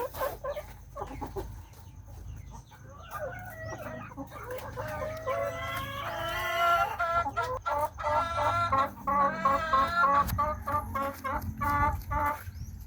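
Chickens clucking and calling: a run of pitched calls that starts a few seconds in, with longer drawn-out calls in the middle and quick, choppy clucks toward the end.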